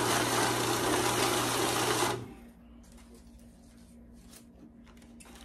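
Electric banknote counting machine running a stack of bills through: a steady motorized whir with a low hum and a fast riffle of paper for about two seconds, then it stops. A few faint clicks and rustles of bills being handled follow.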